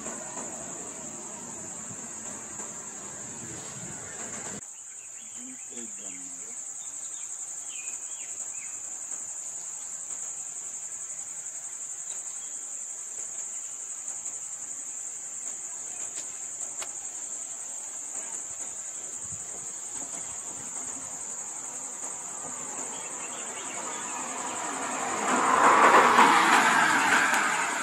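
Steady high-pitched buzzing of insects in roadside vegetation. Near the end a motor vehicle passes close by, swelling to become the loudest sound and then fading.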